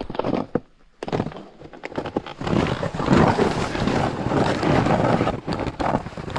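Snowboard riding down through snow: a rough, uneven scraping hiss full of small knocks, growing louder about two and a half seconds in.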